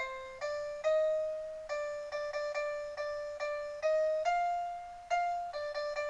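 Toy baby boom box music player playing a simple electronic piano-style tune. The notes come one at a time, each struck and fading, with some quick repeated notes among longer ones.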